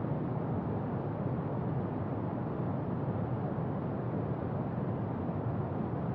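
Brown noise: a steady, deep hiss, heaviest in the bass and thinning toward the treble, unchanging throughout.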